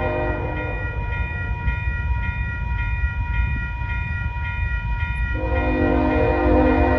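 Approaching BNSF diesel locomotive's multi-chime horn sounding for the grade crossing: it stops a little under a second in and comes back at about five and a half seconds, louder, over a low rumble. The crossing signal's bell rings steadily throughout.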